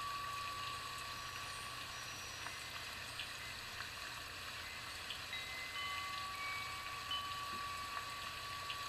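Soft chime-like background music: clear high tones that come in and hold for a few seconds at a time over a steady hiss.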